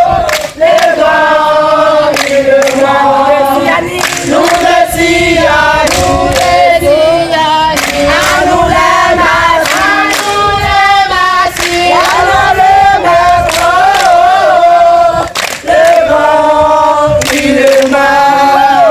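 A group of voices singing together in chorus, with sharp percussive beats running through the song.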